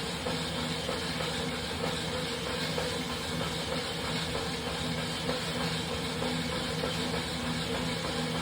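Wahoo Kickr Rollr smart roller trainer spinning under a ridden bike: a steady whirring hum with several even tones over a constant hiss.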